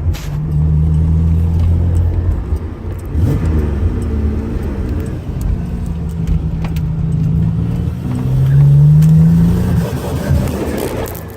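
Turbocharged 3800 V6 (L36) in a Pontiac Grand Prix pulling under load. Its note holds steady, breaks up and drops about three seconds in, then climbs again near the end before falling away. This is the car's misfire problem.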